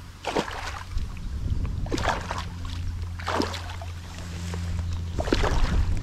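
Water splashing four times, one to two seconds apart, over a steady low hum.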